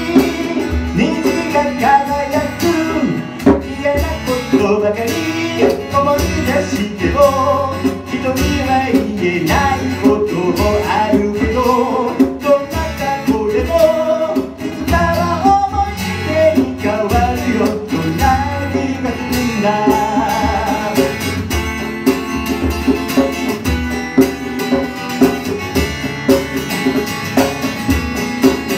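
Acoustic guitar played live, with a man singing along.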